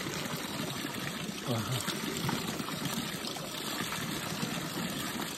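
Snowmelt water running in a steady trickling stream.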